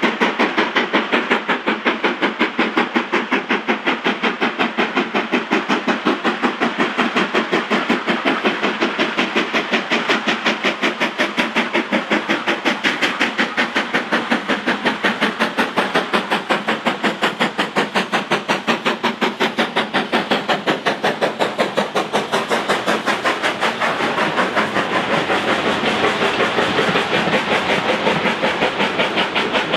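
BR Standard Class 4 tank steam locomotive working hard, its chimney exhaust beating in a rapid, even rhythm. About 24 seconds in, the coaches rumble and clatter past close by.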